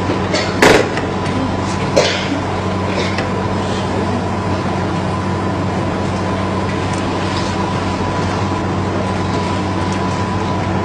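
Steady low hum and hiss, with two short sharp clicks, one under a second in and one about two seconds in.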